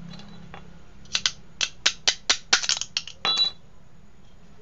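A quick series of sharp metallic clinks, about ten in two and a half seconds, as the steel rocker shaft and rocker arms are handled and taken out of a Honda Vario scooter's cylinder head. The last clink rings briefly.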